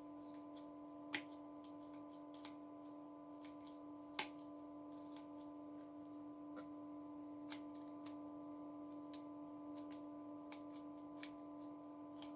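Scissors snipping at a thin zinc metal casing: scattered sharp clicks, the loudest about a second in and about four seconds in, over a steady low hum.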